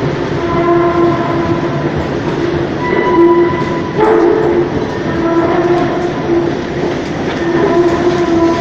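Long, horn-like moaning tones, held for seconds at a time with small shifts in pitch, over a steady rumble. These are the unexplained 'strange sounds' likened to a shofar; the recorder first suspects an escalator, then metal grinding at a construction site overhead.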